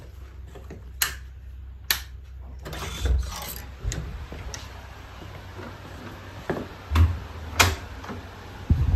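Household handling noises: a few sharp clicks and knocks, a stretch of rustling, and several low thumps as someone moves about a room.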